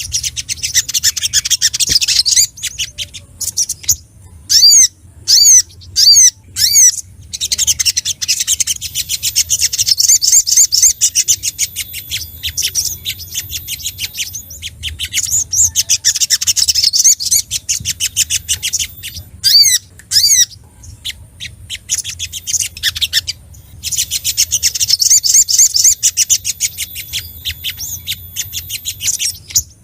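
Sogok ontong (little spiderhunter) calling excitedly: rapid runs of sharp, high chirps in dense chattering bursts, broken by spaced single loud chips.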